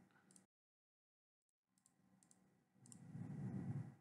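Computer mouse clicking a few times, short sharp clicks in near silence, with a soft low rustle-like noise for about a second near the end.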